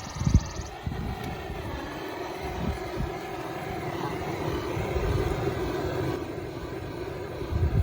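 Propane torch flame burning steadily, heating heat-shrink tubing over the crimped cable splice, with a thump just after the start and another near the end.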